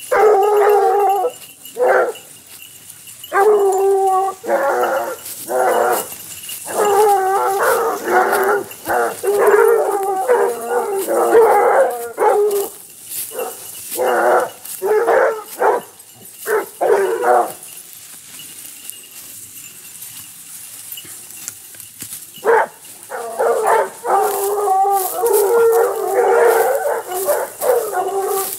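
A pack of basset bleu hounds baying in a chorus of overlapping cries as they hunt on a scent. The cry dies away for a few seconds past the middle, then picks up again near the end.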